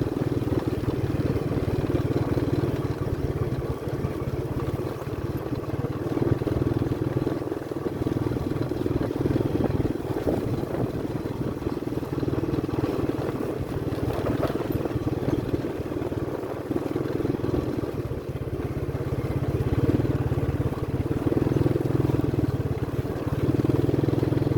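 Small motorcycle engine running steadily while being ridden.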